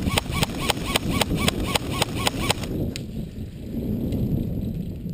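Airsoft rifle firing a rapid string of shots, about five a second, that stops about two and a half seconds in, leaving a low rumble of wind on the microphone.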